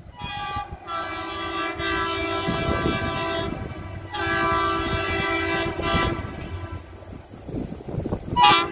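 Horn of an approaching pair of WDM3D diesel locomotives sounding two long multi-tone blasts, the first about three and a half seconds and the second about two, then a short sharp blast near the end, the loudest. A low rumble runs underneath.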